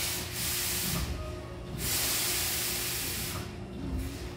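Hankyu train's pneumatic door engines hissing in loud bursts of released air as the passenger doors slide shut, with a dull thud near the end as they close.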